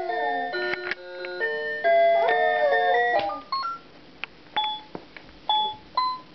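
Children's electronic toy keyboard playing a short electronic tune of steady beeping notes, which stops about three seconds in. Then come single notes, each with a click, a second or so apart, as keys are pressed one at a time.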